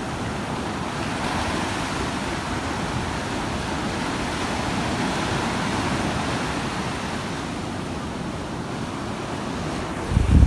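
Ocean surf breaking on a beach: a steady rush of wave noise. Near the end a gust of wind buffets the microphone.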